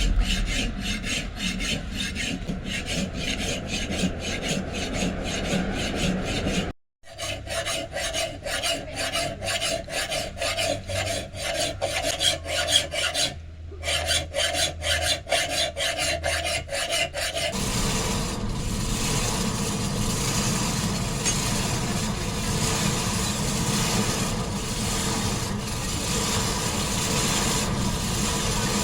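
Rhythmic rasping strokes of abrasive hand work on the steel blade of a large khukri, scraping back and forth several times a second, with two brief breaks. After about 17 seconds it gives way to a steadier, more even rubbing noise.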